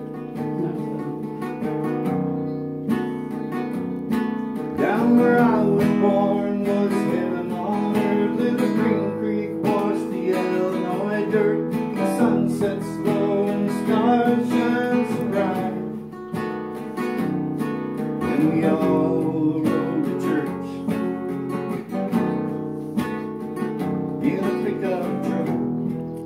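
Nylon-string classical guitar playing a continuous strummed and picked passage.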